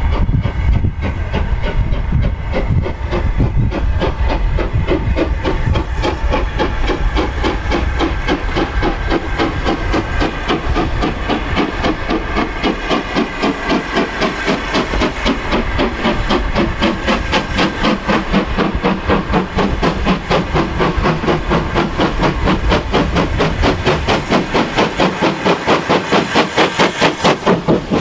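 Steam tank locomotive hauling a train away under load, its chimney exhaust beating in a fast, regular rhythm over steam hiss. The beats grow louder and sharper towards the end as the engine comes close.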